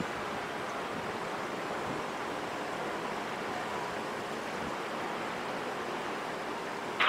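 A steady rushing noise with no clear tone, broken near the end by a short, sharp burst.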